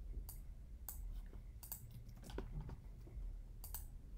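Faint computer keyboard and mouse clicks, short taps spaced irregularly about once a second.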